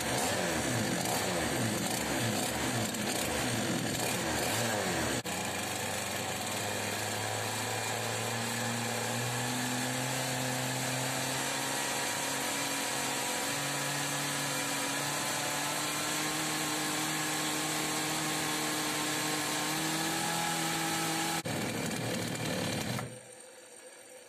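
Small two-stroke chainsaw engine running, revved up and down over the first few seconds, then held at a steady speed whose pitch creeps slowly upward. It shuts off near the end.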